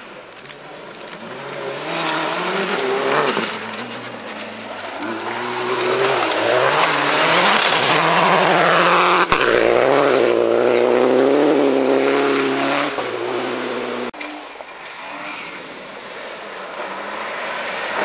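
Rally car engines at full throttle on a special stage, the revs rising and falling with each gear change. One car comes close and is loudest about halfway through, then pulls away, and the sound breaks off abruptly twice.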